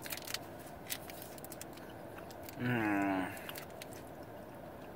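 Small crackling clicks of a chocolate bar's plastic wrapper being torn open and handled. About three seconds in comes a short hummed 'mm' from the taster.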